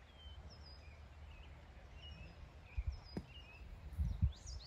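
Golf club striking bunker sand on a greenside bunker shot: one short, sharp hit about three seconds in, with low dull thumps around it. Birds chirp throughout.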